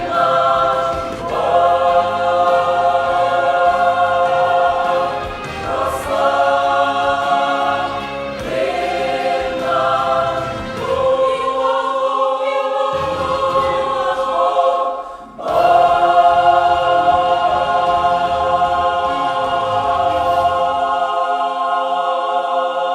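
Youth choir singing the closing bars of a Ukrainian hymn in sustained chords. After a short break about fifteen seconds in, it holds one long final chord.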